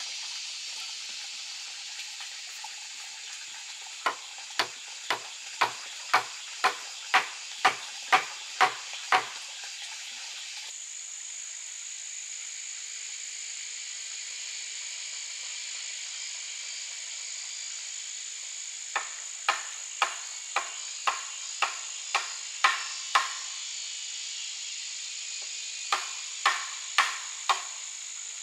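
Runs of sharp knocks, about two a second, of timber being hammered: ten blows, a pause, then nine more and a last run of four. Under them a steady shrill chorus of forest insects.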